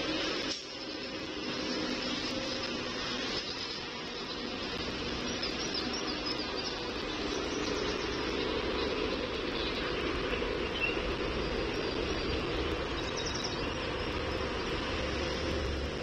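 Steady distant mechanical rumble and outdoor background hum, with a few faint, high bird chirps about five seconds in and again near thirteen seconds.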